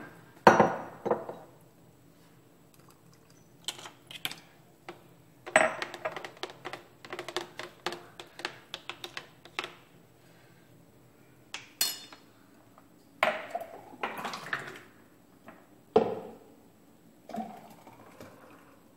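A metal spoon stirring a thick avocado milkshake in a plastic NutriBullet blender cup, clinking quickly against the cup's sides for a few seconds, with scattered knocks as the cup and spoon are handled and set down on the counter.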